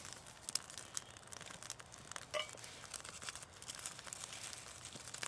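Bundle of dry pine twigs being handled and laid around a small fire, with irregular light clicks and rustling, and one brief clink about two and a half seconds in.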